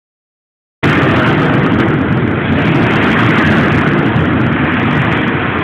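Steady loud rushing roar, typical of an indoor shooting range's ventilation, starting abruptly about a second in, with no gunshots.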